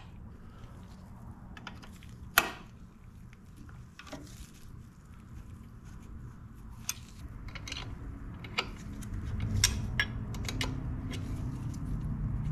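Metal hand tools clicking and clinking on a motorcycle's chain adjuster as an open-end wrench and hex key work the adjuster lock nuts loose. The clicks are scattered and sharp, the loudest about two seconds in. A low steady hum builds up near the end.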